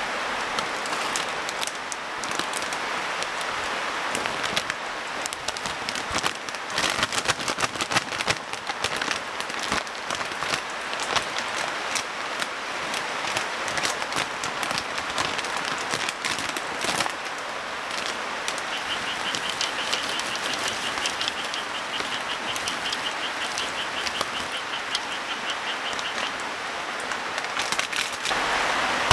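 Steady rain, with a plastic snack bag crinkling loudly as it is opened and handled through the middle of the clip, and snacks pouring onto a metal plate near the end. After the crinkling stops, a faint, high, rapid pulsed trill repeats for several seconds.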